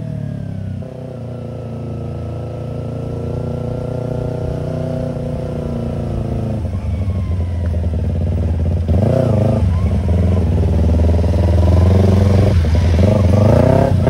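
Yamaha YZF-R25 parallel-twin engine through a Tiger aftermarket exhaust, revving as the bike accelerates. Its pitch climbs, drops briefly at gear changes a few times, and climbs again, getting louder toward the end.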